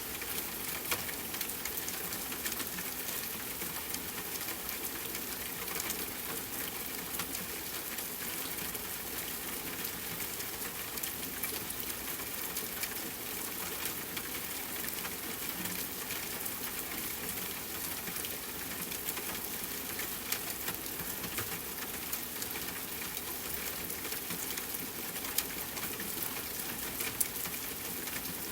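Steady rain falling, an even hiss made up of many small drop ticks, with a few louder single drops standing out.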